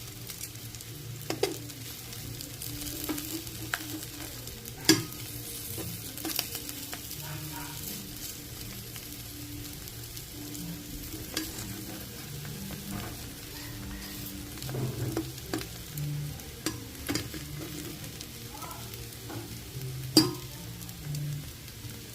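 Food sizzling in hot oil in a pan, with a utensil stirring and scraping it. There are sharp clicks of the utensil against the pan, loudest about a second, five seconds and twenty seconds in.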